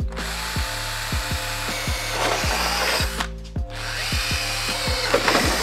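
Cordless drill with a 1/8-inch bit drilling a pilot hole into a spot weld in sheet-steel radiator support, its motor whirring steadily, pausing briefly about three seconds in, then drilling again. Background music with a repeating bass line plays underneath.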